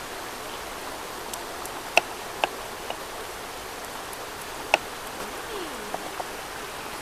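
A steady hiss with about half a dozen sharp clicks and knocks over it. The loudest come about two seconds in and just before five seconds in.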